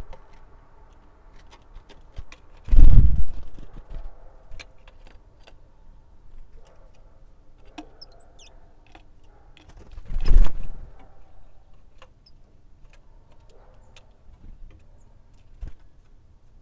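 Great tits coming and going at a seed feeder: two loud, short whirring wing flutters close by, about three seconds in and again about ten seconds in, between light clicks and taps, with a few faint high call notes about eight seconds in.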